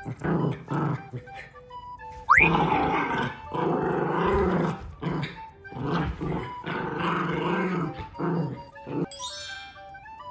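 Adult Shiba inu growling in several rough bouts while play-fighting with a puppy, the loudest stretches between about two and eight seconds in, over light background music. A short, sharp rising squeal comes just before the loudest growling, and the growls stop about nine seconds in.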